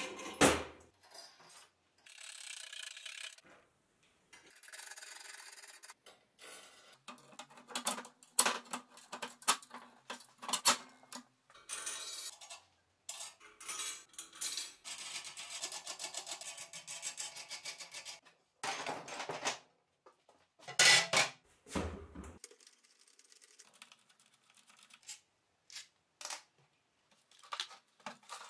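Steel parts being handled and assembled on a metal workbench: nuts and bolts clinking, metal pieces knocked and set down, with stretches of rubbing and scraping between the short knocks. The loudest knocks come about three quarters of the way in.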